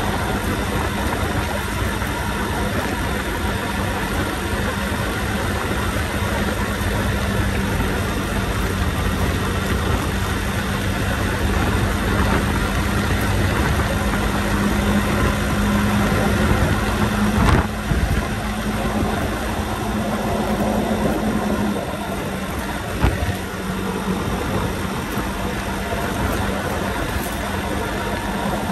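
Motorbike engine running steadily while riding, with wind and road noise. The engine note rises a little past the middle, then falls back, and two short knocks come through in the second half.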